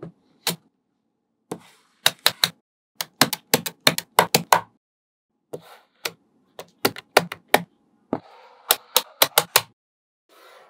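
Small magnetic balls clicking sharply as panels of them are snapped against each other and set in place, in quick clusters of clicks with short pauses between.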